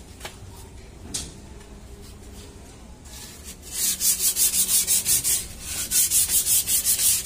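Hand sanding or scraping on a truck's drum brake shoe lining: quick back-and-forth strokes, about five a second, that start about four seconds in, roughening a slightly wet lining so it grips.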